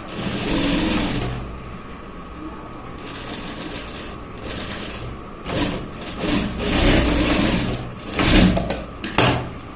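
Sewing machine stitching a cuff onto a shirt sleeve in short runs that start and stop: one run near the start, then several more in the second half.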